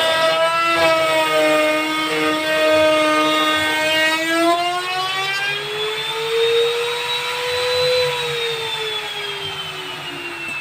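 Electric wood router running a cut through plywood, its high motor whine wavering and sagging in pitch under the cutting load. About eight seconds in the pitch starts falling steadily and the sound fades as the router winds down.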